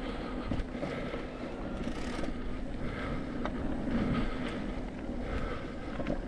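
A mountain bike descending a dirt trail: steady wind noise on the microphone and tyre roll, with scattered clicks and rattles from the bike.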